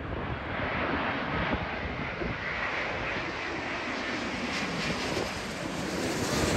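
Jet airliner on final approach, its engines a steady rushing noise with a faint whine, growing loudest near the end and then falling away. Wind buffets the microphone.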